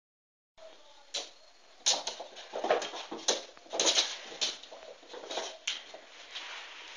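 A run of irregular sharp knocks and clatter, about a dozen hits spread over some five seconds, loudest in the middle, starting after a brief moment of dead silence.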